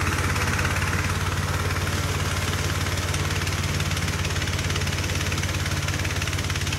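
The 20 hp engine of a homemade flail mower running steadily at an even speed.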